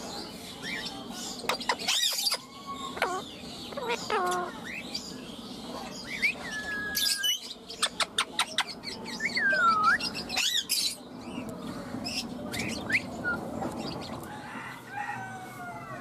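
Indian ringneck parakeet calling: a string of short chirps, squawks and gliding whistles, with a quick run of clicks about halfway through.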